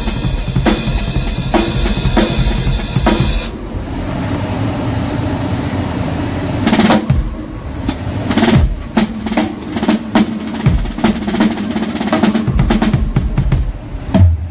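Drum kit played in a soundcheck. A steady beat runs for the first few seconds, then a short lull, then busy drum fills of rapid, uneven hits from about seven seconds in.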